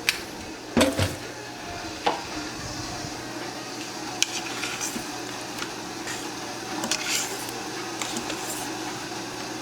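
A spoon knocking and scraping against a cooking pot while cooked red kidney beans are scooped out to test whether they are soft: scattered clinks, the loudest about a second in.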